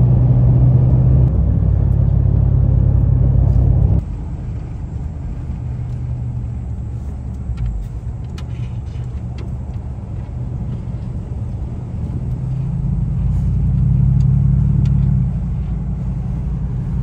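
Engine and road noise inside a moving vehicle, a steady low hum. It drops abruptly about four seconds in, and near the end the engine swells for a couple of seconds, then eases off.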